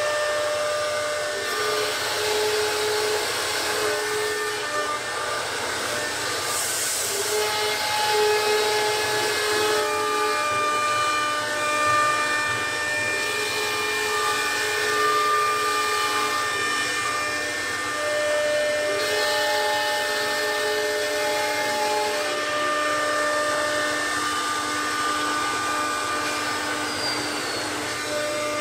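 CNC router spindle and bit cutting a door panel pattern into a board, a steady machine whine over a cutting hiss. Several held tones jump to new pitches every second or few as the head changes direction and speed.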